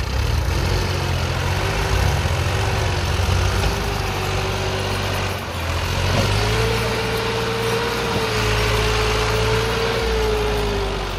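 Massey Ferguson 260 Turbo tractor's three-cylinder diesel engine running under load as it pulls a loaded trolley, with a steady whine that steps up in pitch about six seconds in and sinks again near the end.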